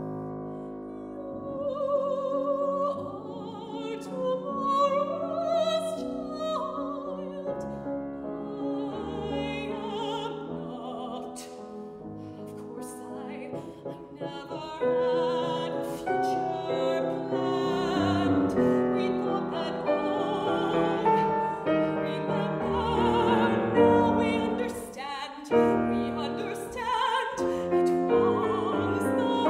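Soprano singing an operatic aria with vibrato, accompanied by a grand piano, the music growing louder from about halfway through.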